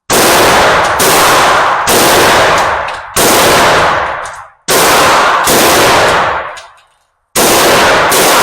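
A 9mm handgun firing about seven single shots, roughly one a second with uneven gaps, each loud report trailing off in a long echo.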